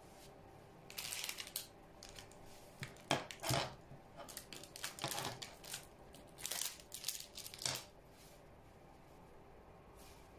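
Irregular dry crackling and rustling in short bursts, starting about a second in and stopping near the end.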